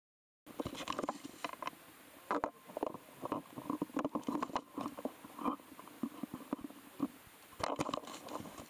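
Irregular knocks, bumps and rustles of dive gear, feet and hand-held camera movement on a boat deck, starting about half a second in.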